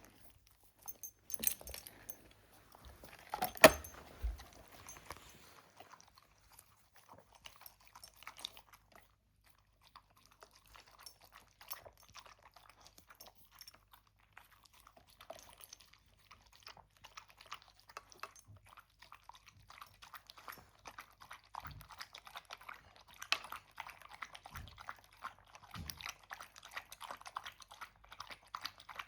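A pet eating, with crunching and chewing that start sparse and grow into steady rapid crunching over the last ten seconds. A loud sharp noise stands out about three and a half seconds in.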